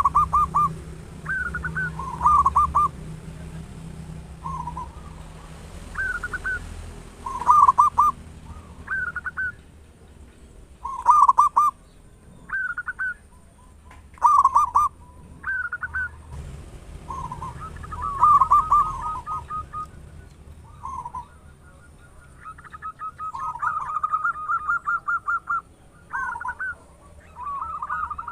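Zebra dove (perkutut) song: short cooing phrases repeated every second or two. Some phrases run into quick rolling trills about two-thirds of the way through.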